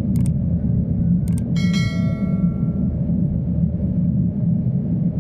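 Steady low rumble inside an Airbus A350-900 cabin before takeoff. Two sharp clicks come early, then about a second and a half in a single cabin chime rings out and fades over about a second, the signal ahead of a crew announcement.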